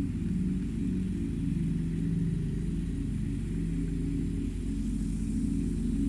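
Ambient electronic music: a low, steady drone of several held tones that slowly shift, with a faint hiss high above.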